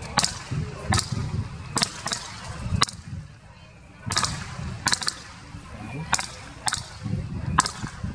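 Aerial fireworks shells bursting, a series of sharp bangs about once a second, several coming in quick pairs, over a low background rumble.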